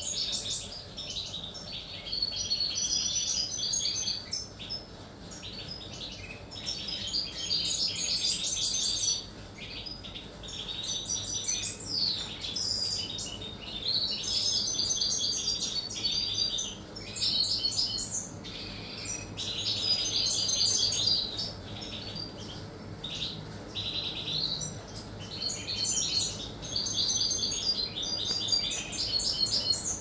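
European goldfinches singing: fast, liquid twittering and trills in phrases of a few seconds, one after another with short pauses.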